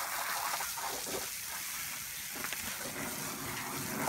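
Water from an open garden hose, with no nozzle, splashing steadily onto an outdoor mat and the concrete beneath it as the dirt is rinsed off.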